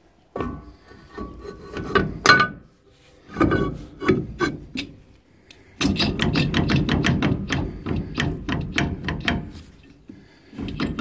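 Ford Courier rear brake drum being slid on over the freshly adjusted shoes, with a few metal knocks. It is then turned by hand for about four seconds, scraping with a fast run of clicks, a sign the shoes are set close to the drum.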